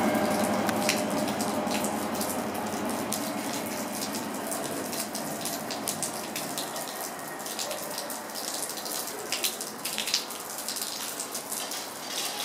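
The diesel engine of a departing High Speed Train power car, fading away over the first few seconds and leaving a steady hiss of rain with drops ticking close by.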